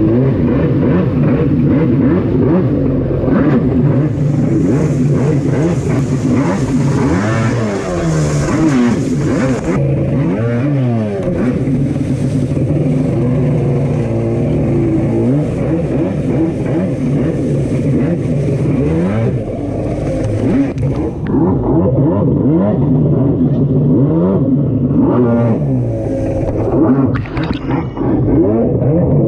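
Jet ski engine running hard, its pitch rising and falling again and again as the throttle is worked through the waves, over the hiss of spray and wind rushing past.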